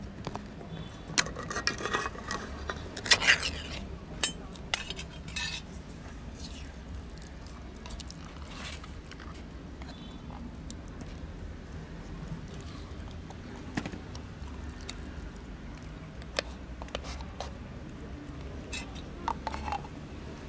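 Metal tin of wet cat food being opened and emptied onto foam plates: metallic clinks and scrapes, busiest in the first five seconds, then scattered clicks.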